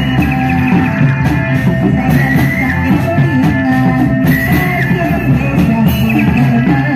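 Loud music with drums and a wavering high melody line: the accompaniment for an Indramayu Reog masked dance.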